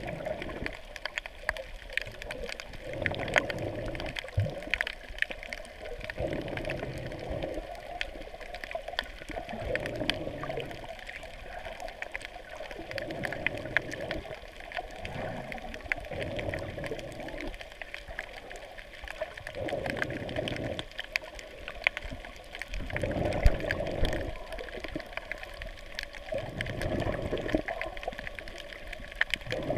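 Underwater water noise heard through a GoPro's waterproof housing: a muffled sloshing that swells and fades every two to three seconds, over constant faint crackling clicks.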